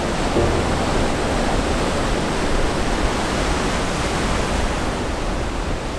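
Lake Michigan waves breaking and washing up on the shore, a steady rushing surf.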